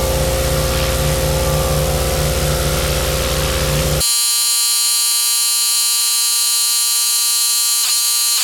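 Pressure washer running steadily while cleaning concrete. About four seconds in, the sound cuts abruptly to a high, even buzzing tone with many overtones.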